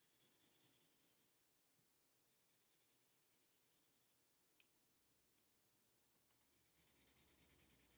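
Felt-tip marker scribbling back and forth on a thin paper strip, colouring it in: faint, rapid strokes in short spells, loudest near the end.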